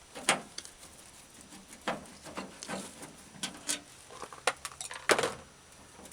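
Irregular clicks and light knocks of hand tools and small metal parts being worked in a truck door, with two louder knocks, one just after the start and one about five seconds in.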